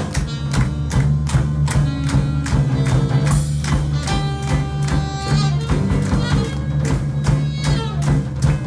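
A band playing live: drums keep a steady beat over a steady bass line, and a lead instrument holds long notes through the middle.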